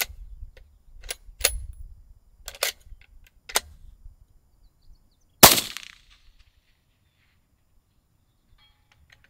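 A few sharp metallic clicks from a Mossberg MVP LR bolt-action rifle being handled, then about five and a half seconds in a single suppressed 6.5 Creedmoor rifle shot with a short echoing tail.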